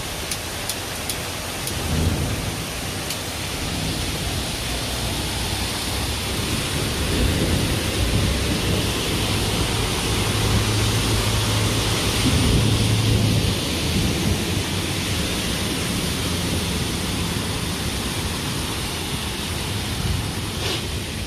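Heavy rain pouring down steadily onto a flooded street. About ten seconds in a low engine hum rises for a few seconds as a bus drives through the floodwater.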